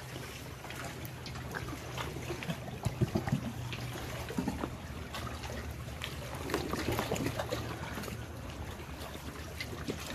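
Water trickling and splashing lightly around a canoe as it is paddled, with drips and small splashes from the paddle strokes.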